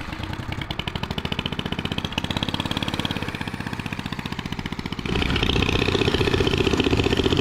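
Turbocharged, fuel-injected Predator 420cc single-cylinder engine of a drift trike running as the trike rides off, a rapid even putter. About five seconds in it is suddenly much closer and louder.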